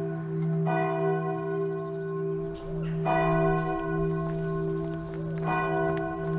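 Church bells ringing, with three fresh strokes about two and a half seconds apart. Each stroke rings on over the next, so the bell tone never stops.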